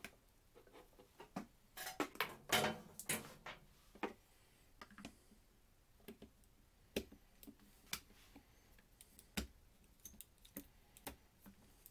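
Screwdriver clicking and scraping against a router's plastic motor housing as the top-cover screws are worked out. There are scattered small clicks and taps, with a busier patch of rustling and scraping about two to three seconds in.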